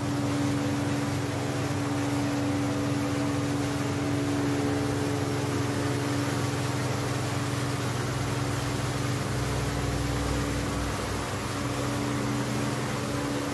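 Steady machinery hum and hiss of an underground metro station, with a low drone and a higher tone held over it. A faint low rumble swells briefly about two-thirds of the way through.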